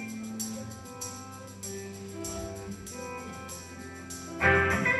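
Punk rock band playing live: a soft intro of held, picked guitar notes, then the full band comes in loud about four and a half seconds in.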